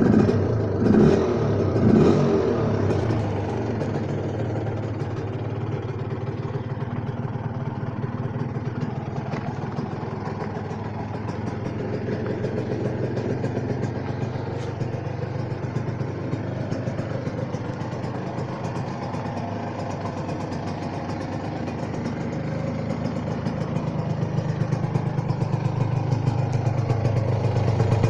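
Gilera CX 125's two-stroke single-cylinder engine with a Polini exhaust, just started: it is blipped three times in the first few seconds, then settles into a steady idle that picks up slightly near the end.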